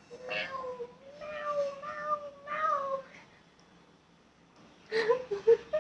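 A toddler's high-pitched wordless vocalising: long, slightly wavering 'aaa' sounds over the first three seconds, then a few short squeaky sounds about five seconds in.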